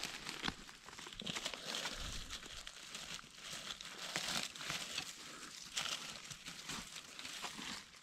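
Footsteps through forest-floor leaf litter and undergrowth: an irregular rustling and crinkling of leaves, with small cracks of twigs.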